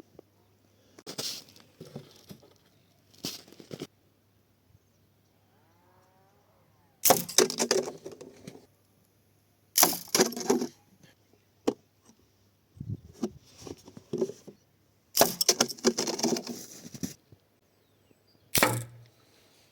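Homemade pistol crossbow with a steel-cable string and saw-blade steel limbs being shot several times. There are sharp cracks a few seconds apart, each with a short rattle after it, and quieter handling clicks between shots.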